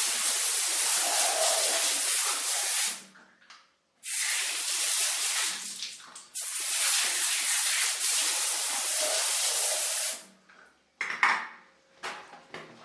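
Water spraying in three long stretches of steady hiss, each cut off abruptly, then two short splashes near the end: rinsing a bathroom during cleaning.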